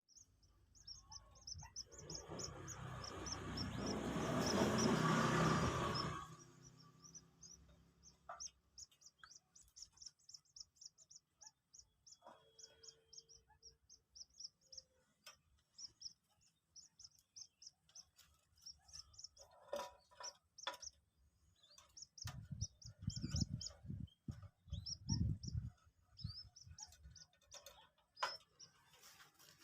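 A two-day-old white-breasted waterhen chick peeping, short high notes repeated rapidly and without pause. Early on, a loud rush of noise swells and then cuts off suddenly, and some low bumps come near the end.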